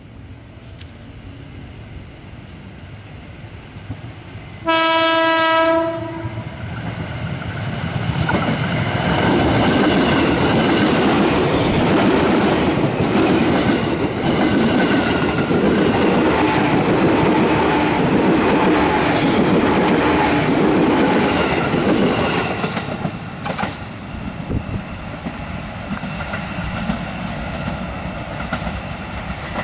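JR 205 series KRL commuter electric train sounding one short horn blast about five seconds in, then passing at speed with loud wheel clickety-clack and a whine. After about 22 seconds the sound drops to a quieter rumble.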